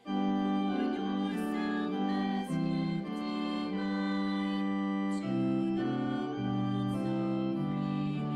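Organ playing slow music in held, sustained chords that change every second or so, a new phrase beginning right after a brief break at the start.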